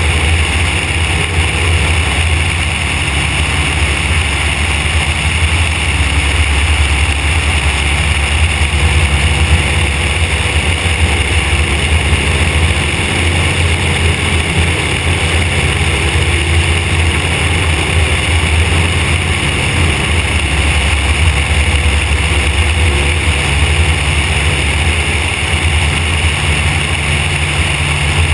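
Van's RV-4 light aircraft's piston engine and propeller running steadily in flight, with air rushing past a camera mounted outside under the fuselage.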